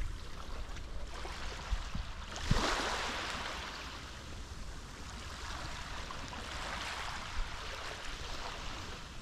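Mediterranean sea waves washing onto the shore. One wave breaks about two and a half seconds in and fades as it washes back, and a softer one rises a few seconds later.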